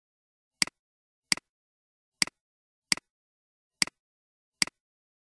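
Computer mouse clicking six times at a steady pace, a little under a second apart, each click a sharp tick with a softer release right after it, as a map layer's checkbox is switched on and off.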